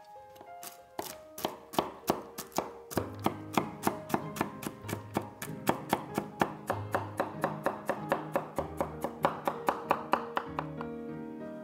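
A large kitchen knife chopping walnuts on a wooden cutting board, quick even strokes about four a second that stop shortly before the end. Soft guitar music plays underneath.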